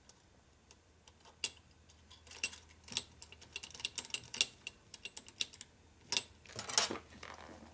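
Irregular run of small metallic clicks and taps as the nuts are spun by hand onto the end of a Harley 65-amp 12-volt generator, starting about a second and a half in, with a brief rustle of handling near the end.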